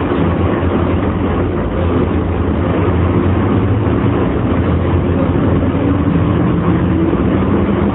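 Running sound inside a JR 115 series electric motor car (MoHa 115-2021): a steady low drone of traction motors and wheels on rail, mixed with air-conditioning noise, and a motor tone that rises slowly in the second half. Under it runs a wind-like noise, which the uploader takes for this car's abnormal sound.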